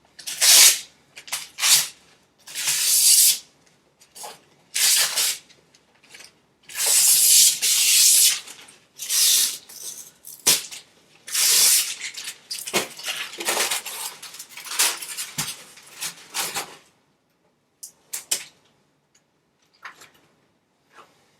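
Packaging rustling and crinkling as it is pulled away from a new flat-screen TV, in repeated loud, irregular bursts of noise for about seventeen seconds, then only a few faint clicks and rustles.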